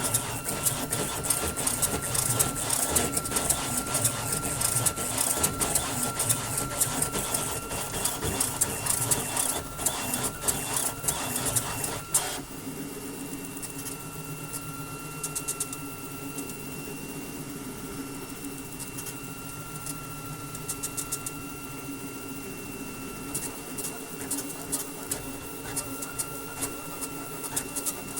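Flashforge Adventurer 5M 3D printer printing at high speed: a steady motor whine under dense, rapid mechanical rattling and clicking from the fast moves. About twelve seconds in it drops abruptly to a quieter steady whine with only occasional short runs of clicks.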